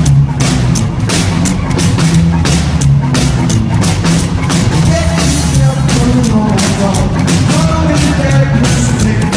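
Rockabilly trio playing loud live: electric guitar over an upright double bass and a drum kit with a steady beat.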